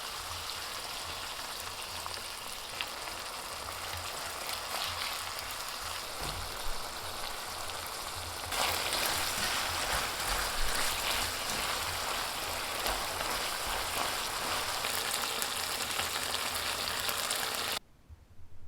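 Pork stir-fry (jeyuk-bokkeum) sizzling in hot oil in a pan, a steady hiss. It gets louder about halfway through and cuts off suddenly near the end.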